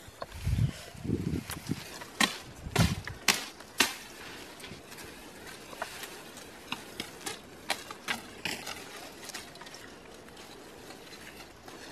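Footfalls and rustling through dry grass and brush, with sharp snaps of twigs, then a run of light chops and cracks as a knife cuts and strips green branches.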